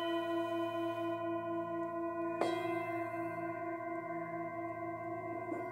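Hand-made seven-metal Himalayan singing bowls struck with a padded mallet. One bowl rings on from a strike just before, and a second bowl is struck about two and a half seconds in, its ringing layering over the first. The strongest tone wavers in a slow, regular beat.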